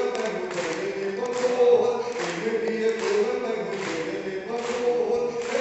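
A man's voice singing verse into a microphone over a PA, in a chanted melody with long held notes.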